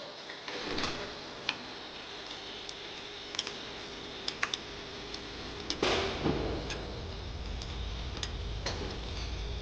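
Irregular light clicks and taps of tools and bicycle parts being handled, some in quick pairs, with a low steady hum coming in about six seconds in.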